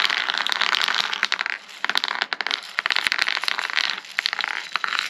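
Tokyo Marui 6 mm plastic airsoft BBs being poured into a BB sizing gauge with graded holes, rattling as a dense stream of small clicks. The rattle is the BBs being sorted by size through the holes.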